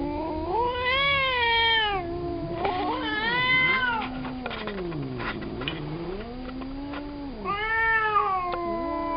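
Domestic cat caterwauling: long, drawn-out yowls that waver up and down in pitch, with louder wails about a second in, around three and a half seconds, and near the end, and low growling between them. It is the agitated, hostile yowl of a cat that does not recognise its companion in a cone collar.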